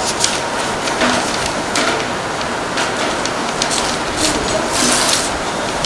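Classroom room tone: a steady hiss with brief scratchy rustles of notebook paper being handled and written on, scattered through it.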